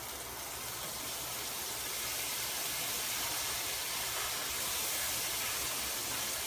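Carrots, onions, garlic and ginger sizzling in a hot wok as dark soy sauce is poured in: a steady hiss that grows a little louder over the first two seconds.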